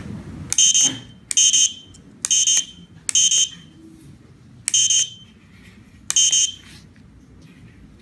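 Electronic buzzer on a 433 MHz remote-control test board beeping six times at uneven intervals, one short high-pitched beep for each press of its tactile push buttons, with a faint click at the start of each beep.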